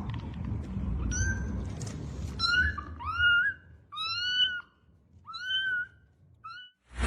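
A cat meowing over and over: a string of about seven short, high-pitched meows, loudest near the middle.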